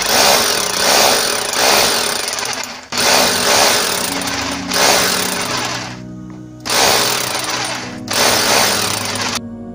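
Rotary hammer drill boring into a plastered wall, running in spells with short breaks about three and eight seconds in and a longer pause around six seconds, then stopping just before the end. Steady background music plays underneath.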